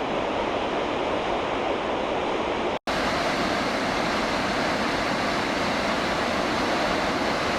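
Steady rush of falling water from a waterfall on Roaring Brook, cut off for an instant about three seconds in.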